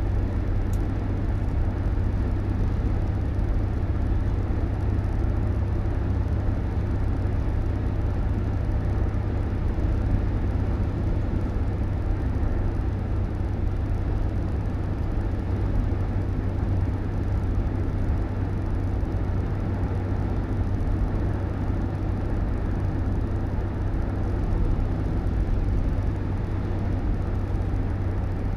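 Steady low rumble of a moving road vehicle, unchanging throughout.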